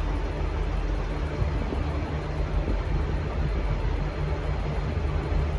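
V/Line N class locomotive's EMD 12-645 two-stroke diesel engine running with a steady low drone.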